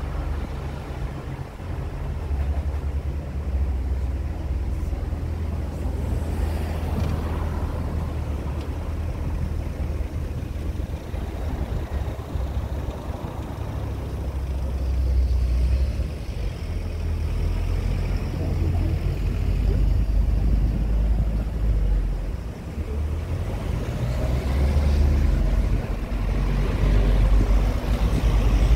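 Engine of a tourist road train running steadily as it drives through town streets, a low rumble with road noise that swells a few times.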